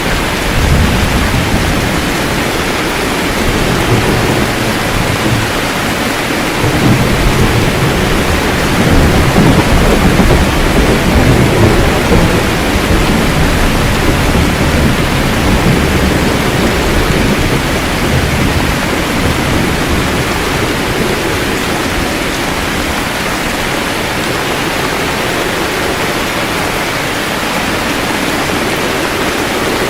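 Steady rain with low, rolling thunder. The rumble swells loudest about a third of the way in and eases off in the second half, leaving mostly the rain.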